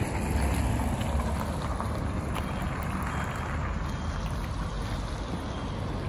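Steady outdoor rumble of wind on the microphone mixed with road traffic, with no single event standing out.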